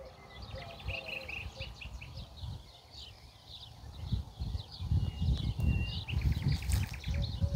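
Small birds chirping repeatedly in open countryside. From about four seconds in, a low, irregular rumble joins them, like wind gusting on the microphone.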